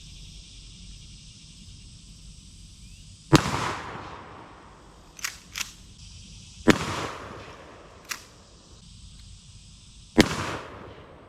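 20-gauge pump-action shotgun fired three times, about three and a half seconds apart, each shot followed by a fading echo. Short sharp clacks between the shots are the pump action being worked to chamber the next shell.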